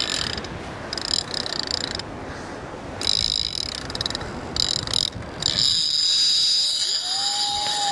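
Heavy big-game fishing reel's drag buzzing high-pitched as a large hooked shark pulls line off, in several runs that start and stop, the longest near the end.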